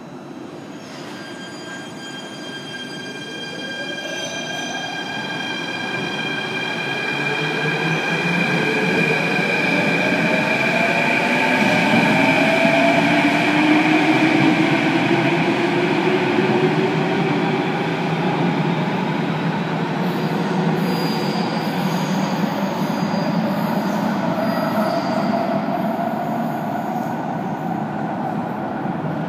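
Athens Metro Line 3 train pulling out of an underground station, its motors whining up in pitch as it accelerates over steady high-pitched tones. The noise grows for about the first half and stays loud as the train runs off into the tunnel.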